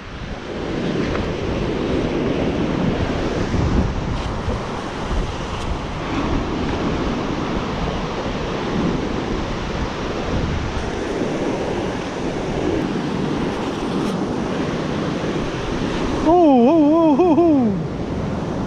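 Surf breaking and washing on a beach, with wind buffeting the microphone. Near the end a louder, wavering, voice-like tone rises over it for about a second and a half.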